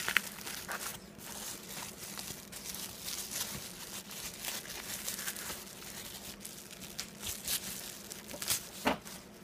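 Bubble wrap and plastic packaging crinkling and rustling as it is unwound by hand, with many small crackles throughout.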